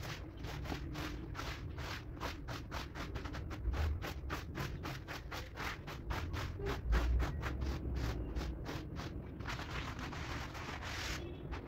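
Rubber squeegee scraping wet, dirty suds across a rug in quick, regular strokes, about four a second. Near the end the strokes run together into a continuous scrape.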